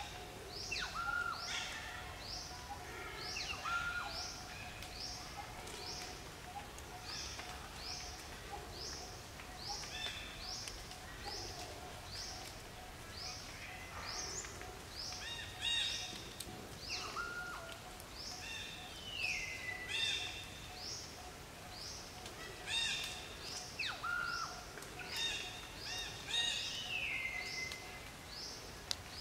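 Forest birds calling: a steady series of short, high, downward-sliding chirps about twice a second, with other whistled calls and a couple of long falling whistles mixed in, over a faint steady hum.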